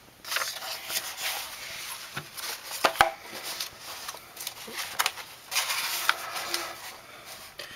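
Sheets of lined notebook paper being turned over, rustling and crinkling in two bouts, with a sharp paper snap about three seconds in.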